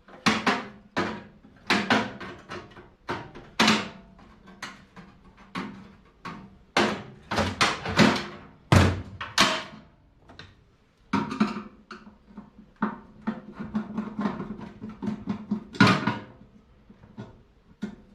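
Metal clanking and knocking from a microwave oven being pulled apart by hand: a string of sharp knocks and clatters, with a quicker run of small taps and clicks in the second half.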